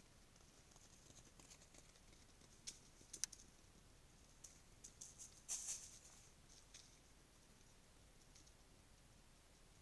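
Faint, irregular crackles and rustles of a mountain lion's footsteps on leaf-strewn ground, clustered in the middle few seconds over the trail camera's steady hiss.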